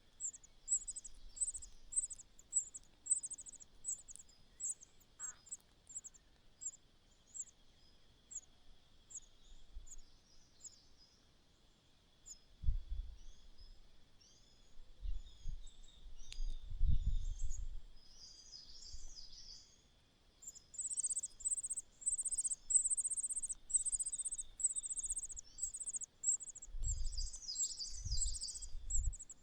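Young birds chirping in short, high, repeated calls, about two a second at first and then in quick dense runs later on, typical of chicks begging to be fed. Several dull low thumps come in the middle and near the end, and a faint steady high hum runs underneath.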